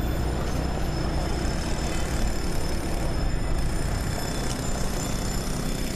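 Steady rumble of a moving vehicle: engine and road noise, heavy in the low end, with no distinct events.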